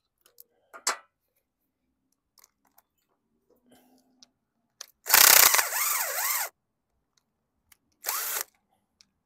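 Cordless drill driving the float-bowl nut of a small-engine carburetor: one loud run of about a second and a half whose pitch rises and falls, then a shorter run a couple of seconds later. It is turning forward instead of in reverse, so it does not back the nut off.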